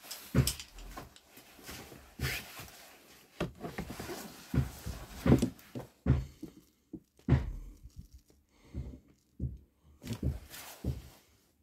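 Irregular knocks, clinks and rustling from hands working a bearing puller into a bearing in a Honda CB125 engine case.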